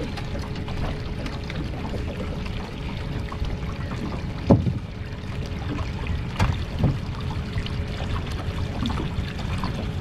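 Water sloshing against a small boat's hull, with a few knocks and thumps on the boat as a landing net and a freshly caught mulloway are handled. The loudest thump comes about halfway through, with two smaller ones soon after.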